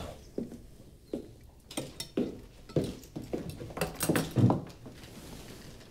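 A string of irregular knocks, clicks and clinks, about a dozen over several seconds, a few with a duller thud: things being handled and set down in a room.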